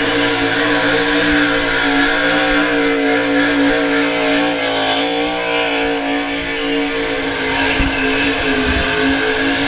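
NASCAR stock car's V8 engine held at high revs during a burnout, a loud, steady drone whose pitch wavers briefly about halfway through, with the rear tyre spinning and smoking on the asphalt.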